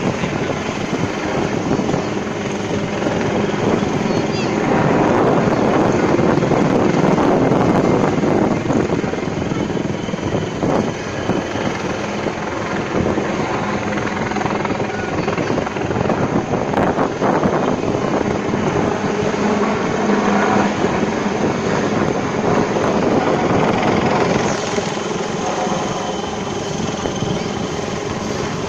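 Two navy helicopters flying overhead, their rotors and engines making a steady, loud drone.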